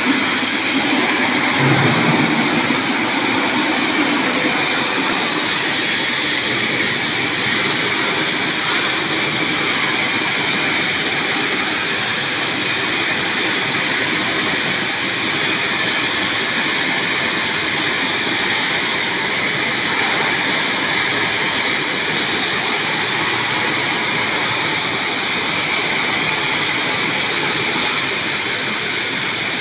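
Twin plasma torches on a gantry CNC cutting machine cutting steel plate together: the arcs make a loud, steady hiss.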